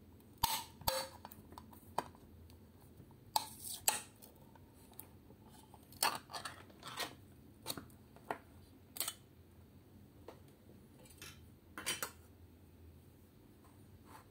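A ring-pull tin can being opened: sharp metal clicks as the tab breaks the seal about half a second in, a scraping rattle as the lid is pulled away a few seconds in, then a metal spoon clinking and scraping against the tin in scattered taps.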